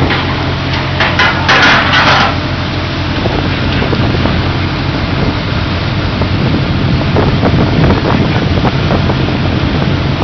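Steady low hum of fishing-vessel machinery with wind noise over it. A quick run of clattering knocks comes about one to two seconds in, and fainter knocks follow later.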